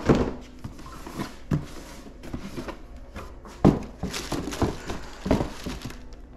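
Sneakers being handled in a cardboard shoe box: tissue paper rustling, with several sharp knocks of the box and shoes, the loudest right at the start and a cluster a little over halfway through.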